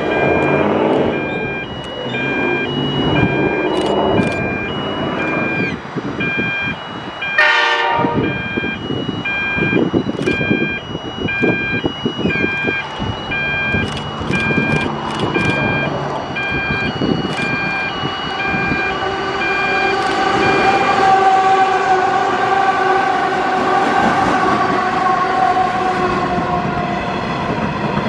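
Level crossing warning bells ringing in a steady alternating two-note pattern as a diesel-hauled freight train approaches; its engine note swells through the second half, and loaded hopper wagons are rolling past near the end.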